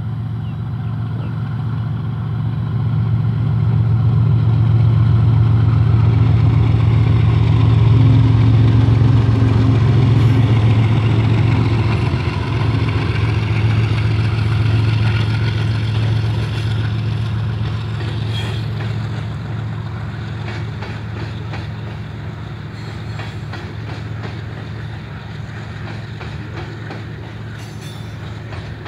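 Pakistan Railways GEU-40 diesel-electric locomotive passing under power at the head of a heavy loaded coal train: a deep, thunderous engine drone that builds to its loudest about eight seconds in and then eases off. After that, the loaded hopper wagons roll by with a clickety-clack of wheels over the rail joints.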